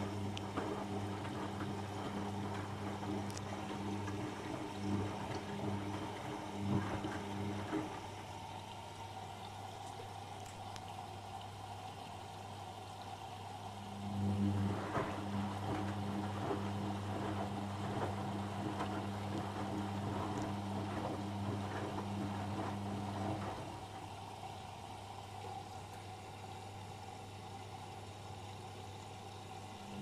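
Whirlpool FL 5065 front-loading washing machine tumbling its load in rinse water: the drum motor hums and water sloshes as the drum turns. The hum drops away about eight seconds in, leaving softer water sounds, and returns at about fourteen seconds for another nine seconds or so.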